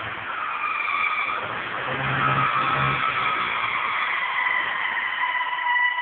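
1995 Honda Civic D16Z6 engine with a Jackson Racing supercharger making a strange high-pitched whistle over the engine note. The whistle shifts in pitch in the middle, where the engine sound swells about two seconds in, then settles into a steady tone near the end. The owner traced the noise to the crankcase breather being wrongly connected after the throttle body.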